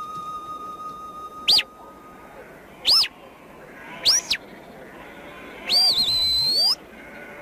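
A shepherd giving whistled commands to his sheepdogs: four sharp, high whistles, each rising and falling in pitch. The third is followed by a short pip, and the last, longest one dips and then climbs.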